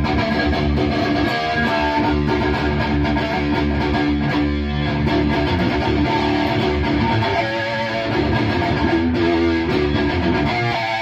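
High-gain distorted electric guitar riff played dry through a Bogner Uberschall preamp module set to full sag, with no delay. The playing is continuous and loud.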